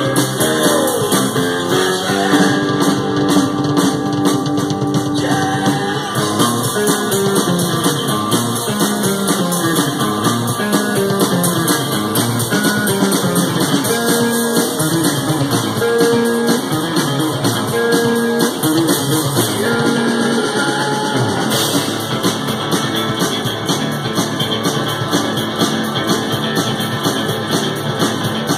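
Robot band playing live rock music: electric guitar, bass guitar and drum kit, loud and continuous.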